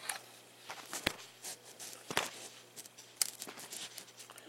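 Scattered light clicks and small handling noises from hands working inside an opened iPod Classic, with a few sharper clicks spread through.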